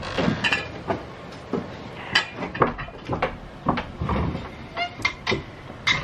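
Irregular knocks and clatter of objects being bumped and handled in a cluttered workshop: a string of short, sharp hits at uneven intervals.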